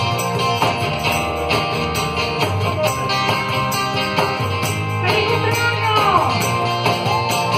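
Live band music: strummed acoustic guitar with hand percussion and a jingling tambourine keeping a steady beat, and singing on the microphone, clearest from about five seconds in.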